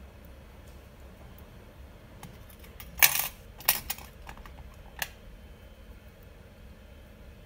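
Small metal parts of a rebuildable dripping atomizer clinking as it is handled: a quick cluster of sharp clinks about three seconds in, two more just after, and a last single clink about two seconds later.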